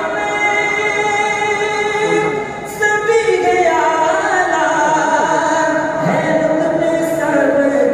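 A man's voice reciting a devotional naat into a microphone, unaccompanied, in long drawn-out melodic phrases with a short break about two and a half seconds in.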